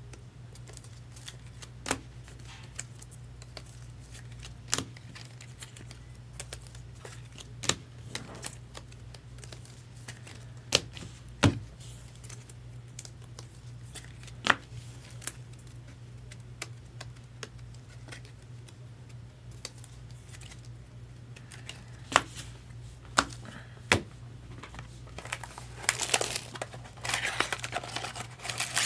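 Scattered sharp clicks and taps every few seconds, then a stretch of crinkling wrapper near the end, as a box of Bowman Sterling baseball cards is handled and its pack opened, over a faint steady low hum.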